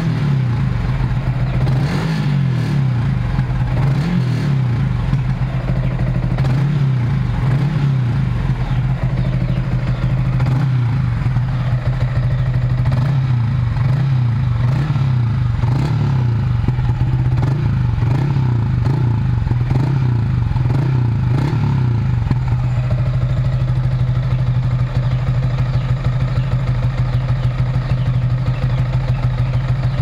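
Yamaha Sniper 155R's single-cylinder engine running through an UMA back-pressure aftermarket muffler. The throttle is blipped over and over for about twenty seconds, each rev rising and falling in pitch, and then the engine settles to a steady idle.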